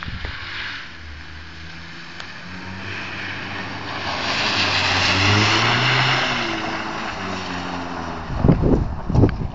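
A car engine revving hard as the car slides past on snow, rising in pitch and getting louder as it nears, with a hiss of tyres and thrown snow loudest when it is closest. Near the end, wind buffets the microphone in low rumbling gusts.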